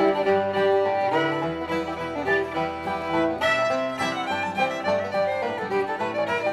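Instrumental background music: a string tune with several notes sounding together, changing note every fraction of a second.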